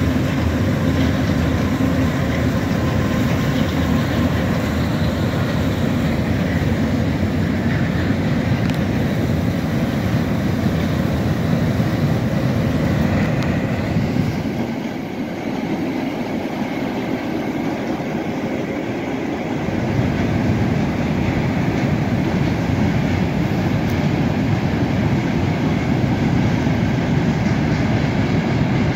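Providence & Worcester freight train's cars rolling steadily across a steel truss bridge, a continuous rumble of wheels on rail. The low rumble thins out for a few seconds about halfway through, then comes back.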